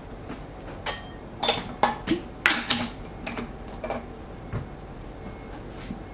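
Metal cocktail shaker parts and bar tools clinking and knocking as they are handled and set down on the bar counter: a cluster of sharp clinks between one and three seconds in, then a few lighter taps.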